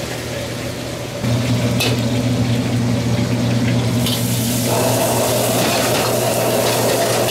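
A steady low drone from the wok stove, which jumps louder just over a second in. From about four seconds in, chopped vegetables sizzle in the hot wok, with the metal spatula clicking and scraping against the pan.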